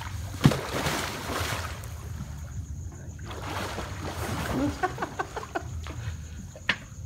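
A person entering a swimming pool: one sharp, loud splash about half a second in, followed by churning, sloshing water, more water movement a few seconds later, then small splashes and drips near the end.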